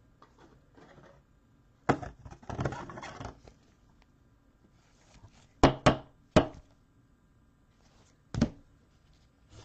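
Cards and packs being handled on a tabletop: a sharp tap about two seconds in followed by a brief rustle, then three quick knocks around the middle and one more near the end.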